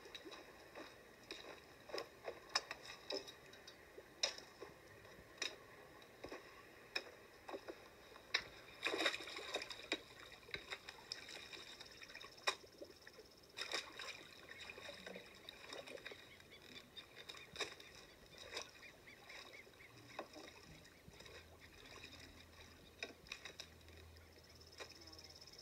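Water splashing and sloshing in irregular bursts as a long-handled tool is worked through a shallow fish pond full of dead fish, faint, as played back through a TV and re-recorded.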